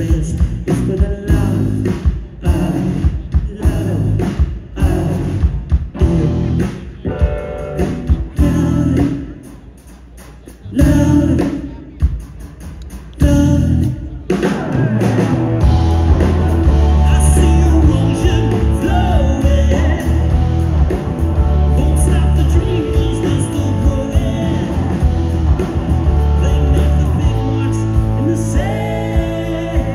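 A live rock band playing electric guitars, bass and a drum kit, with singing. For about the first half the band plays short punched chords in a stop-start rhythm; about halfway through it settles into steady full-band playing.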